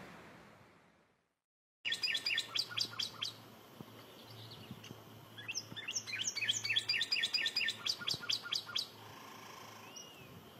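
Northern cardinal singing: two phrases of quick, repeated down-slurred whistles, a short one about two seconds in and a longer one from about five and a half to nine seconds.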